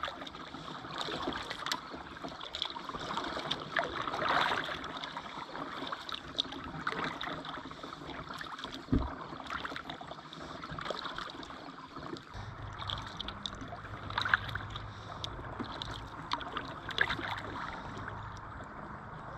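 Kayak paddle strokes in calm river water: the blades dip and pull at an uneven pace, with splashes and drips off the paddle and a single thump about nine seconds in. A steady low hum comes in about two-thirds of the way through.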